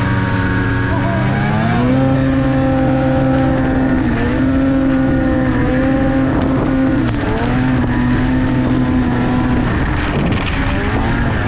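Snowmobile engine running under way, its pitch climbing as the throttle opens about a second and a half in, holding, dipping briefly a few times, easing off around the middle and falling back near the end before picking up again.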